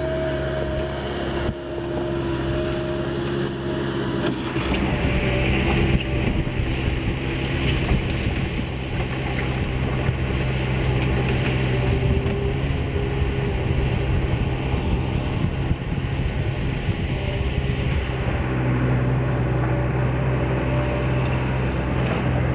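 Bobcat 753 skid steer loader's diesel engine running steadily as the machine works, growing a little louder about four and a half seconds in.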